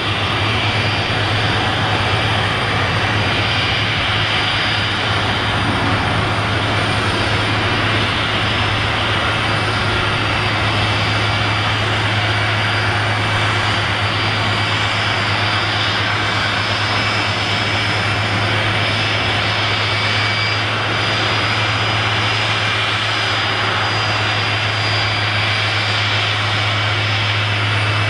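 Jet airliner engines running at a steady pitch: an even rush of noise over a low hum, with several fixed high whining tones and no rise or fall.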